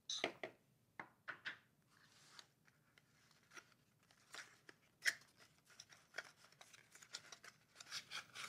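Faint handling noises as a small accessory box is opened: light rustling and scattered clicks, the sharpest about five seconds in.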